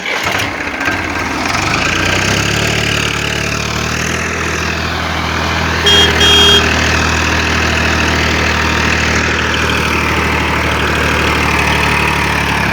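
Vehicle engine idling steadily, with two short high beeps close together about six seconds in.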